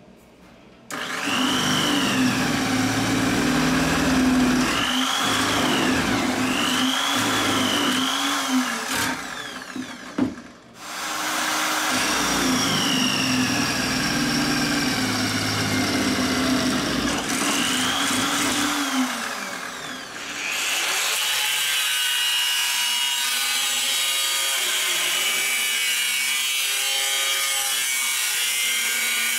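Drill press boring through sheet steel: a steady motor hum under a bit squealing in rising and falling pitch, with a short break about ten seconds in. From about three-quarters of the way through, an angle grinder cuts the steel plate with a continuous high-pitched grinding.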